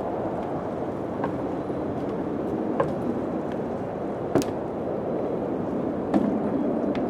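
Steady wind blowing, with sharp knocks or creaks every second or two, the loudest a little past the middle.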